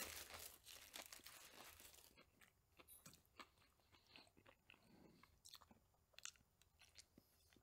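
Faint crinkling of a foil wrapper as a club sandwich is lifted out, then faint biting and chewing of the sandwich near the end.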